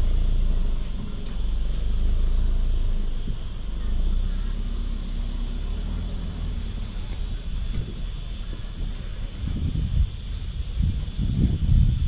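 Steady high insect buzz over a low vehicle rumble that eases off after the first few seconds, with irregular low thumps in the last couple of seconds.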